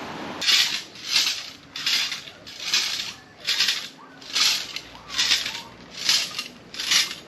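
A steady series of crunching footsteps on dry ground, about one step every three-quarters of a second.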